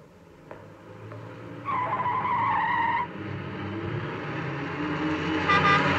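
Car tyres squealing, a loud wavering screech of over a second, then the car's engine running louder and louder as it approaches, with another short tyre squeal near the end.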